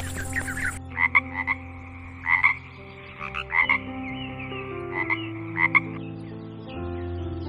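Frog croaking: short pulsed croaks that come in small groups every second or two.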